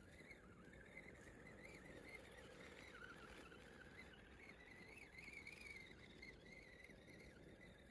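Faint high whine of a small radio-controlled 4x4 crawler's electric motor as it drives, the pitch wavering up and down with the throttle.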